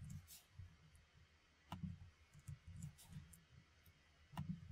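Faint, scattered clicks of a computer being worked by hand while code is edited, with two sharper clicks, about two seconds in and near the end, over soft low knocks.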